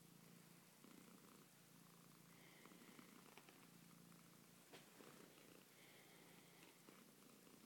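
Black-and-white domestic cat purring steadily and faintly while being stroked.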